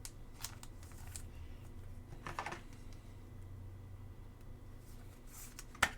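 Trading cards being handled: a few faint clicks and slides as cards are moved through the pack, with a sharper click near the end, over a faint low hum.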